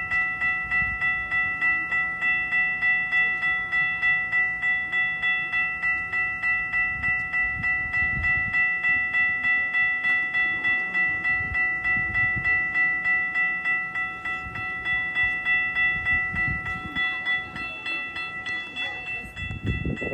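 Railway level-crossing warning bell ringing in an even rhythm of about two to three strikes a second, its crossing activated for an approaching train. Low rumbles from the rail line come and go in the second half, strongest near the end.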